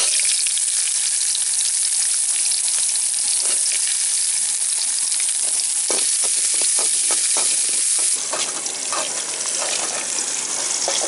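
Chopped onions sizzling as they go into hot oil in a metal kadai, stirred with a slotted metal ladle that scrapes and clinks against the pan. The sizzle starts suddenly as the onions go in and eases a little about eight seconds in.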